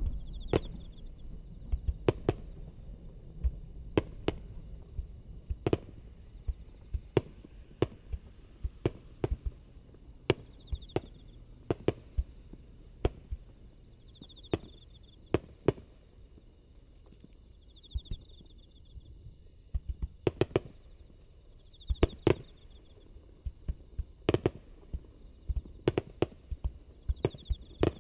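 Aerial fireworks shells bursting about 750–800 m away: a long string of sharp, irregular bangs, some in quick pairs, with a low rumble dying away in the first few seconds.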